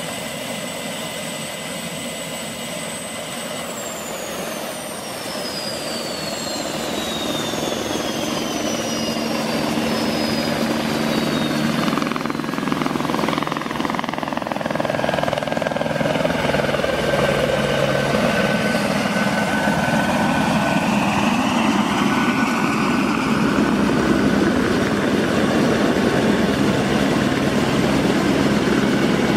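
MBB Bo 105 helicopter running on the ground, rotors turning: turbine whine and rotor noise from its twin Allison 250 turboshafts. A high whine falls steadily in pitch a few seconds in, and the overall noise grows louder through the rest.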